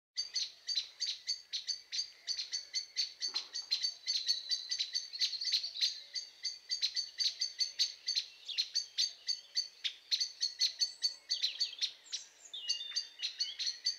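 Small songbirds chirping in a fast, continuous stream of short high chirps, several a second, with a few different twittering calls near the end.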